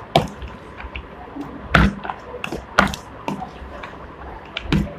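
A steel spoon tossing Kurkure snacks and chopped vegetables in a plastic bowl: irregular knocks and scrapes of the spoon against the bowl, the loudest about two seconds in.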